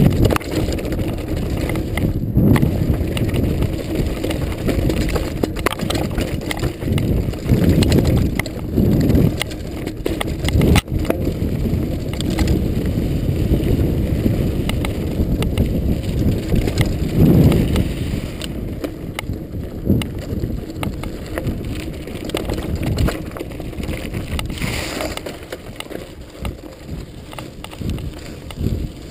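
A hardtail mountain bike descending a dry, rocky dirt trail at speed: wind rushes over the microphone, and the 26x2.5 Continental Mountain King tyres rumble over the ground. Frequent clicks and rattles come from the bike as it goes over bumps.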